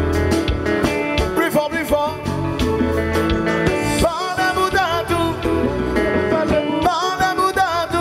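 Live konpa band playing: electric guitar and bass over drums, with a wavering lead melody line coming in about halfway through.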